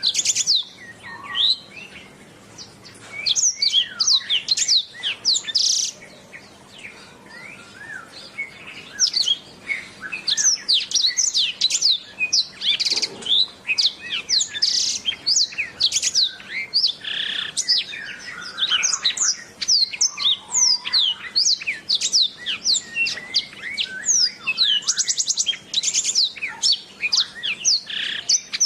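Domestic canary singing a long, continuous song of rapid high chirps, trills and falling whistled notes, with brief pauses between phrases.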